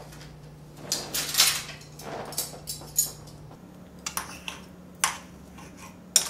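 Metal knife and fork scraping and clinking on a ceramic plate as a plate of noodles is cut up: a string of short, irregular scrapes and taps, the loudest about a second in.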